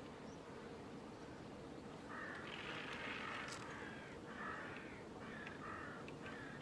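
A crow cawing: a series of harsh caws starting about two seconds in, one drawn-out call followed by several shorter ones in quick succession.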